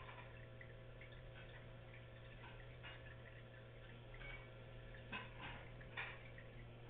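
Faint steady hum with a handful of soft, irregular clicks or ticks, several of them in the second half.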